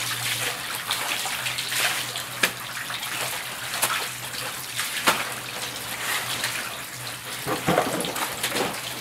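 Water sloshing and splashing in plastic tubs as halves of brined napa cabbage are rinsed by hand, in their third wash for kimchi, with irregular sharp splashes over a steady low hum.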